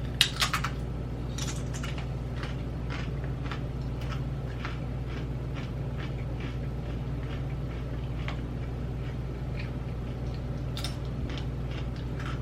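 A person crunching and chewing dill pickle Doritos tortilla chips close to the microphone: scattered sharp, crisp cracks, the loudest cluster about half a second in, over a steady low hum.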